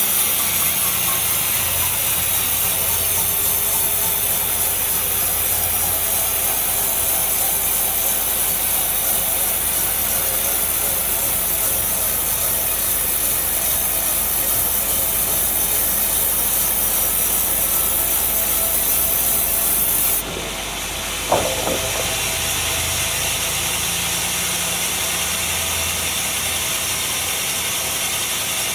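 Sawmill saw cutting through a large log: a steady, loud rasping cut. About two-thirds through, the high hiss cuts off suddenly, followed a second later by a short knock and a lower steady running noise.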